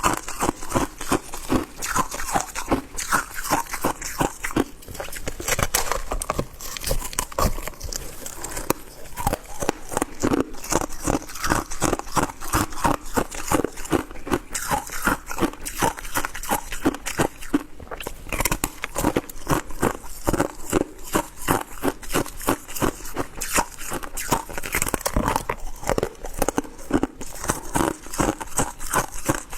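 Shaved ice being chewed with close, continuous crunching, a few crunches a second.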